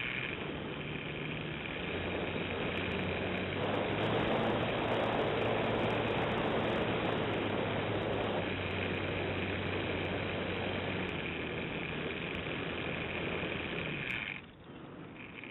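Radio-controlled model plane's motor running in flight, a steady high whine over the rush of air, recorded from a camera mounted on the plane. The sound drops away sharply about a second before the end, as the motor is throttled back.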